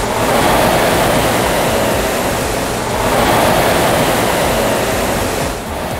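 Concept2 RowErg rowing machine's air flywheel whooshing under slow, steady rowing. The rush swells with each drive stroke, twice about three seconds apart.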